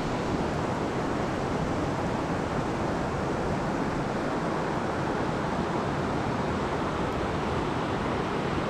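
Mountain stream rushing past, a steady wash of water noise with no breaks.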